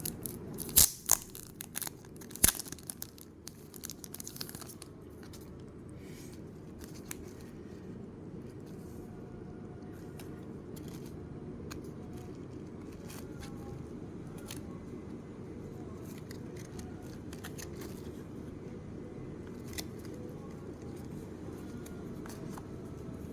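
Packaging being opened by hand: tearing and crinkling with sharp snips and clicks, loudest in the first few seconds. Afterwards only a steady low hum with occasional faint taps of handling remains.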